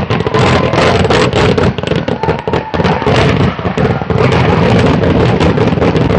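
Vedikettu fireworks display going off: a dense, rapid barrage of loud firecracker bangs, one cracking straight into the next without a break.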